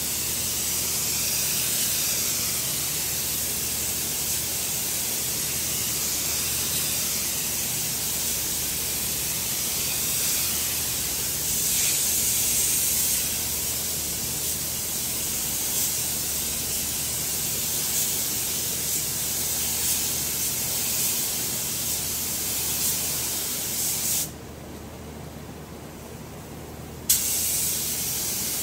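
Gravity-feed paint spray gun hissing steadily as it sprays clear coat onto a car bumper. The spray stops for about three seconds near the end, then starts again with a sharp pop.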